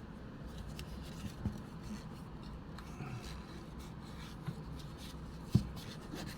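Microfiber cloth rubbing and scrubbing inside the battery compartment of a Konica Zoom 8 movie camera to clean it: soft, scratchy rubbing with a few light knocks and one sharper knock near the end.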